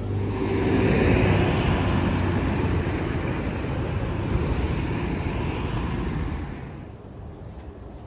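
Road traffic passing: a broad rush of vehicle and tyre noise that swells in the first second or two, holds, then fades away near the end.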